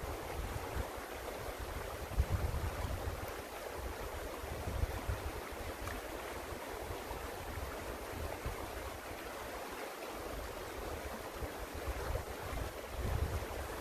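Small creek flowing steadily, a continuous rushing of water, with wind now and then rumbling on the microphone.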